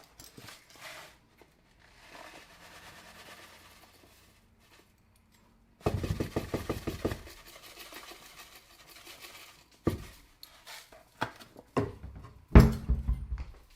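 Kitchen handling sounds while a tablespoon of sugar is measured into a mixing bowl: a soft pouring rustle, then a louder scrape or rattle about six seconds in and several sharp knocks and clatters of a spoon and containers near the end.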